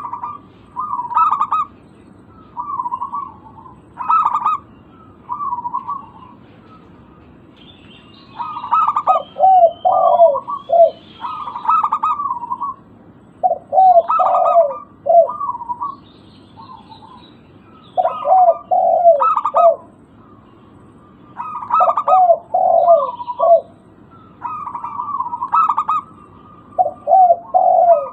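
Zebra dove (perkutut) cooing in repeated phrases of short notes a second or two apart, many phrases dropping to lower rolling notes at the end. Faint higher chirps are heard now and then.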